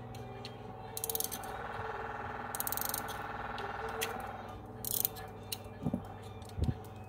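Silver pocket watch case being opened by hand: short metallic clicks and scrapes as the hinged lids are pried open, and two soft handling knocks near the end. The watch's fast, faint ticking runs underneath.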